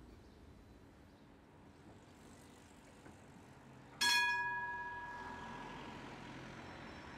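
Tram's warning bell rung once, a single bright ding that rings on and fades over a second or two, against the low hum of the standing light rail tram, which then starts to move off.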